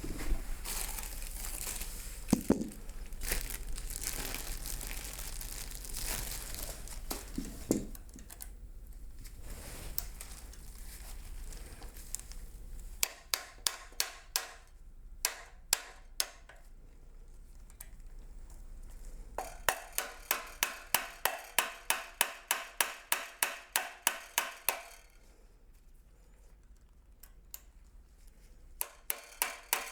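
Hand tools and metal parts being worked on a Tremec T-45 shifter assembly: scraping and handling noise with a couple of knocks, then, about halfway in, runs of sharp, evenly spaced clicks, about three or four a second.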